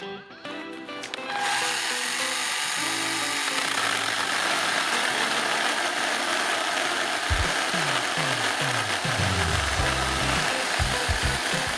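Cordless mini chainsaw running with a steady buzzing whir, after a brief dip in the first second. Background music plays underneath, with a bass line coming in about seven seconds in.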